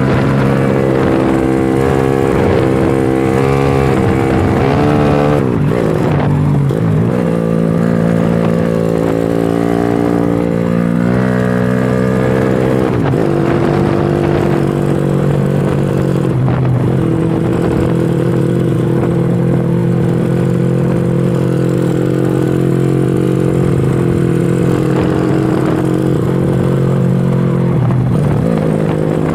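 Honda Astrea Legenda 2 motorcycle engine, a small four-stroke single with a rejetted carburettor (120 main jet, 42 pilot jet), running hard under way. Its pitch drops sharply and climbs back a few times in the first half, then holds nearly steady.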